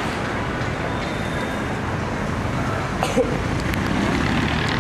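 Steady city street traffic noise, a continuous rumble of road vehicles, with a brief tap about three seconds in.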